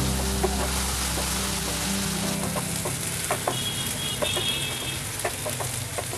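Sliced onions sizzling in hot mustard oil in a nonstick frying pan, stirred with a wooden spatula that clicks and scrapes against the pan now and then. Background music runs underneath.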